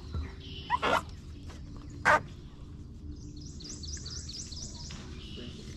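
A bird singing a quick run of about eight rising high notes about three seconds in. Two short, louder noises come earlier; the louder one is about two seconds in.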